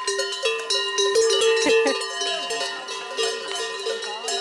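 Several cowbells hung on cows' necks, clanging irregularly as the cows move, their ringing tones overlapping; the clanking is densest in the first two seconds.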